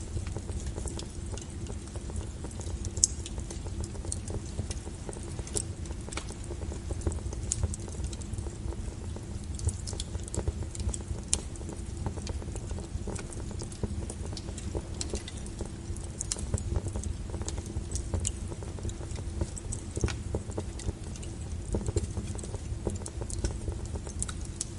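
Wood fire crackling: irregular sharp pops and snaps of burning logs over a steady low rumble.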